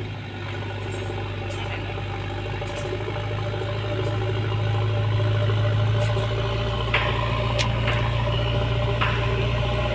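JCB backhoe loader's diesel engine running steadily, growing louder about four seconds in, with a few short sharp knocks in the second half.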